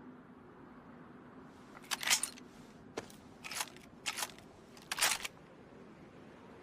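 Bolt of a sawed-off Mosin-Nagant rifle being worked after a shot: five sharp metallic clacks spread over about three seconds, starting about two seconds in.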